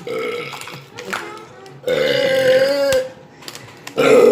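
Deliberate burps forced out on purpose: a short one at the start, a long one about two seconds in that wavers in pitch for about a second, and another starting near the end.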